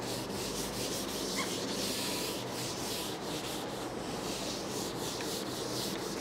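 Whiteboard eraser rubbing across a whiteboard, wiping off marker writing in quick repeated strokes.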